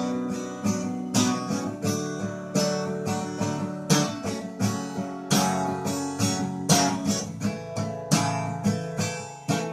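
Acoustic guitar strumming chords in a steady rhythm, the instrumental intro to a song.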